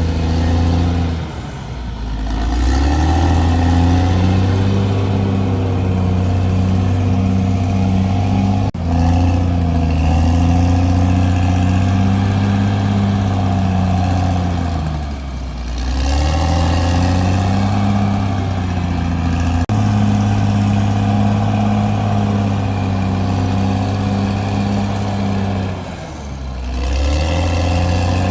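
CAT D6R XL bulldozer's diesel engine running hard. Three times its pitch and level sag, then it revs back up. A single sharp knock comes about nine seconds in.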